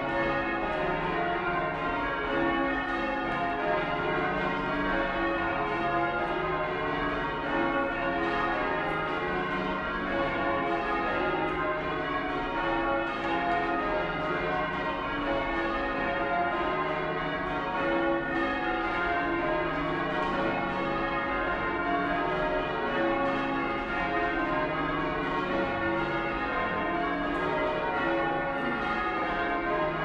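Ring of ten bells in D-flat (tenor 38 cwt), cast in 1892 by John Taylor & Co., being rung full circle in change ringing: an unbroken, evenly paced stream of overlapping bell strikes, heard from the ringing room below the bells.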